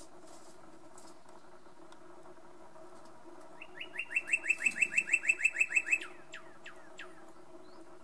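Male northern cardinal singing: a fast run of about fifteen short down-slurred notes, about six a second, starting about halfway through and lasting a little over two seconds, then a few fainter notes trailing off. A faint steady low hum lies underneath.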